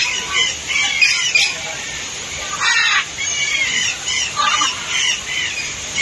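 Parrots calling: a run of short, arched squawks and chatters, with one harsher, noisier screech a little before halfway.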